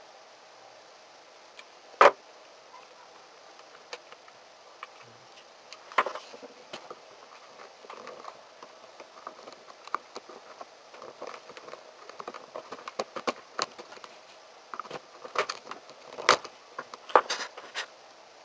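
Sharp clicks and light taps of hand work on a plastic lamp head, with small tools and parts handled: one loud click about two seconds in, then a run of clicks that grows busier toward the end.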